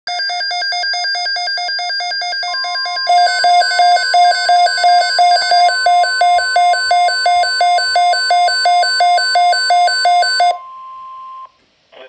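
Midland weather alert radios sounding their electronic alert, a fast pulsing beep that gets louder about three seconds in. Under it, the steady high NOAA Weather Radio warning alarm tone, which announces an alert broadcast, starts a couple of seconds in. The beeping stops first, and the steady tone carries on alone for about a second before cutting off.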